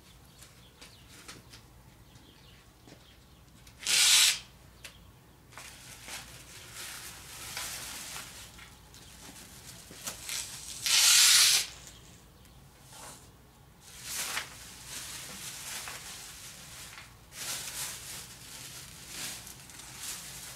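3M pre-taped plastic masking film rustling and crinkling as it is unrolled off the roll and pressed onto the motorhome. Two short, louder bursts of noise come about four and eleven seconds in.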